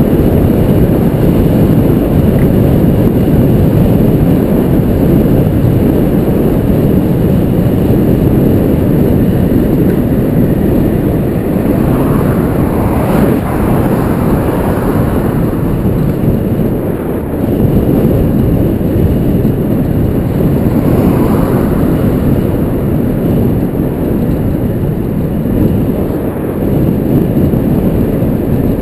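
Steady, loud wind buffeting on a GoPro Hero 2 helmet camera's microphone while riding a road bike, with a brief rise in hiss about halfway through.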